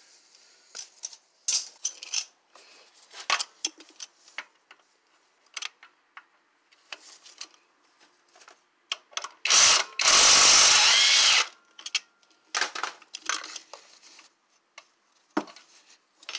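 Impact gun on a long extension running once, in a loud burst of about a second and a half about ten seconds in, undoing a 16 mm CV axle carrier bolt. Scattered light clicks and clinks of metal tools before and after it.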